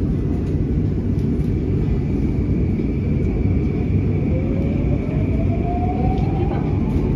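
Downtown Line C951 metro train heard from inside the car: a steady low running rumble, with a traction motor whine rising in pitch from about four seconds in as the train picks up speed after leaving the station.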